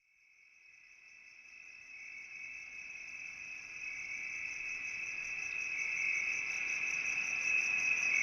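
A high, steady cricket-like insect trill that fades in gradually from silence.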